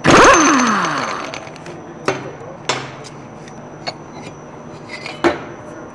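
A sudden loud mechanical sound that falls in pitch as it dies away over about a second and a half, followed by a few sharp metallic clicks, with the same falling sound starting again at the end.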